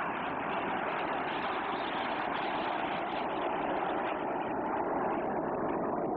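Steady jet noise from a formation of BAE Hawk T1 jet trainers flying low overhead, their Adour turbofan engines heard as an even rushing roar with no distinct whine or tone.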